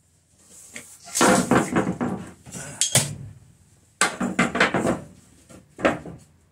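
Clattering and knocking of tools and gear being moved about in a workshop, in two bouts of about two seconds each, each ending with a sharp knock.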